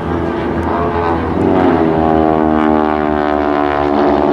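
SNJ/T-6 Texan warbirds' radial engines and propellers droning as the formation passes. The pitch drops about one and a half seconds in, then holds steady.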